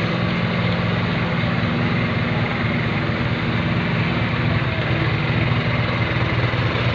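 Engine of a concrete kerb-stone machine running steadily, a low, even engine note that holds without change.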